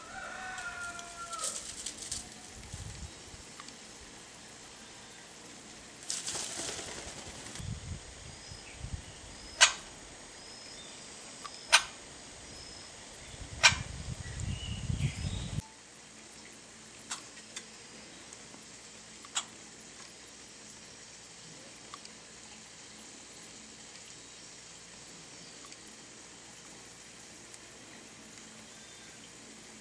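A bird gives a short call with a bending pitch about a second and a half in, over a steady hiss. Three sharp clicks come near the middle, and faint distant chirps are scattered through.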